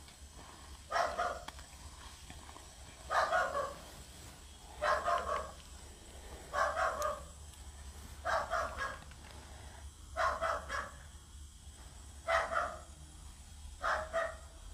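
A dog barking over and over, a short bark about every two seconds.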